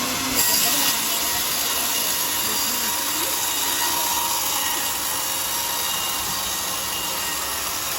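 Power saw running steadily through teak wood, with a brief sharper, higher flare about half a second in.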